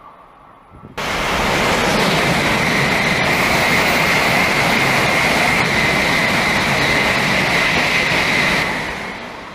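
High-speed train running at speed: a loud, steady rush of wheel and air noise that starts abruptly about a second in and fades near the end.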